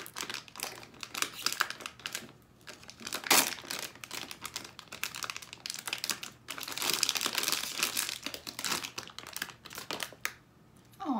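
A foil blind-bag wrapper being crinkled and crumpled by hand as a toy figure is unwrapped: irregular crackling, thickest for a couple of seconds past the middle, then dying away near the end.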